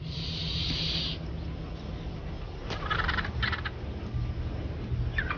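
Vultures' short, harsh, raspy calls in two clusters, about three seconds in and again near the end, over a low steady drone. A hiss runs through the first second.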